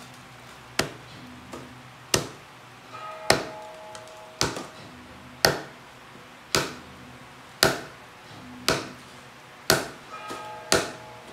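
Small hammer tapping a plug into the consecration cavity in the back of a deity statue, sealing it: about ten sharp, ringing taps, roughly one a second.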